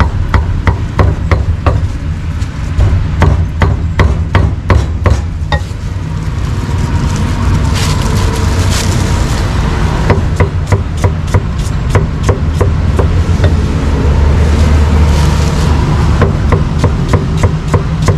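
Cleaver chopping pork on a chopping board: quick, sharp knocks several times a second that pause about six seconds in and start again about ten seconds in, over a steady low rumble.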